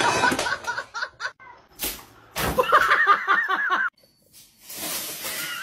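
People laughing, with a single sharp knock about two seconds in, then a stretch of hiss near the end.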